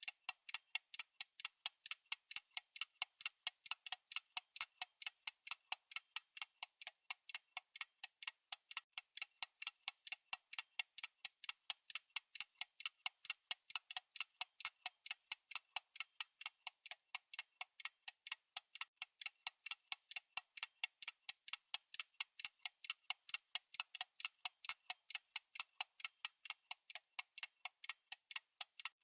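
Clock-style ticking sound effect of a countdown timer: sharp, thin, even ticks at a steady pace, unchanging throughout.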